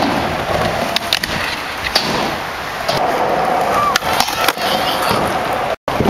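Skateboard wheels rolling over a smooth skatepark surface, punctuated by several sharp wooden clacks of the board popping and landing.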